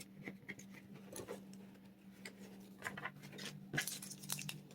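Faint rustles and light taps of Pokémon trading cards and foil pack wrappers being handled and moved aside, busier near the end, over a steady low hum.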